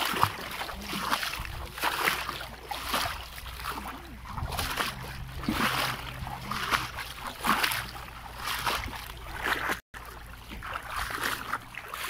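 Splashing footsteps of a person wading through shallow seawater, about one swish a second, over a low steady hum.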